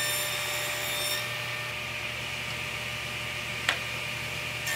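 Table saw running with a thicker blade fitted, making a shallow rabbet cut in a short wooden drawer piece. A high whine from the cut fades about a second in, leaving the saw spinning freely with a steady hum. There is one sharp click a little before the end.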